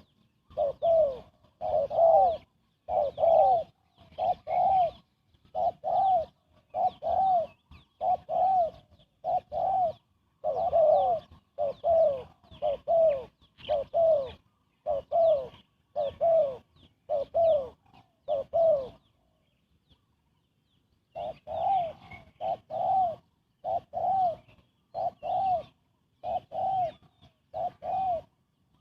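Spotted dove cooing fast: a long string of short, arched coo notes, often in close pairs, with a pause of about two seconds about two-thirds of the way through before the cooing resumes.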